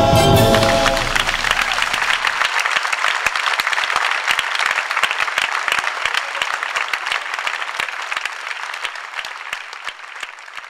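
Theatre audience applauding as the music ends, its last chord cutting off about a second in. The clapping then slowly fades away.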